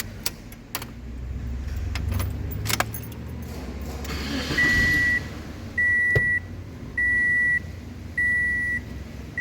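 A few clicks over the low running hum of a 2008 Toyota Corolla's engine, then from about four and a half seconds in a high electronic warning chime beeps steadily, one half-second beep a little over once a second.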